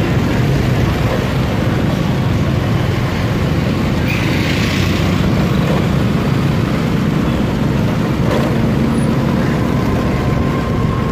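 Steady motorbike and scooter traffic noise heard from a moving motorbike, a continuous engine and road rumble with wind on the microphone. A brief hiss comes about four seconds in.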